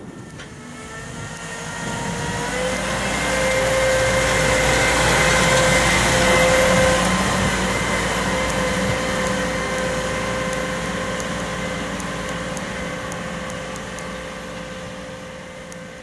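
Manitou MRT2145 telehandler's diesel engine running as the machine drives past and away, with a steady whine over the engine note. It grows louder over the first few seconds, then fades slowly as the machine pulls away.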